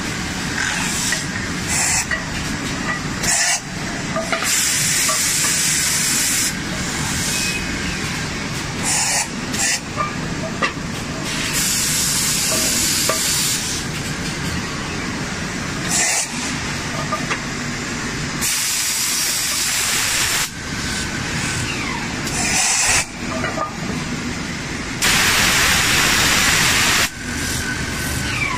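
CNC bottom-grooving lathe running, its tool cutting concentric grooves into the bottom of a spinning metal frying pan: a steady machine noise with repeated bursts of hissing, the longest near the end.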